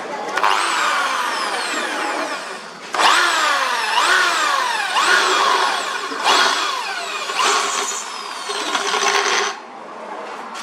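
Power drill running in repeated short bursts, its pitch dropping in each burst, while cutting into steel plate with a step drill bit or hole saw. It stops a little before the end.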